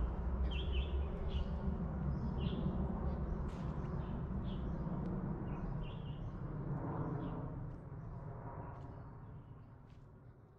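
Small forest birds giving short, high chirps, several a second, over a low rumble. The sounds fade out over the last couple of seconds.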